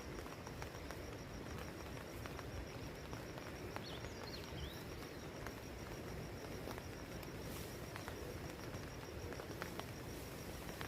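Forest ambience: an insect trilling steadily at a high pitch, with scattered light ticks and a brief bird chirp about four seconds in.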